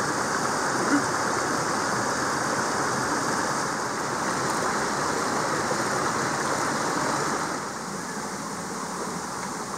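Mountain stream rushing over boulders: a steady wash of water noise that drops slightly in level about three-quarters of the way through.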